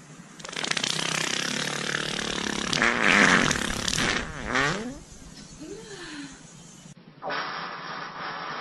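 A person farting: one long fart lasting about three and a half seconds, followed by a short rising squeak about four and a half seconds in. Near seven seconds a different, steady noise begins.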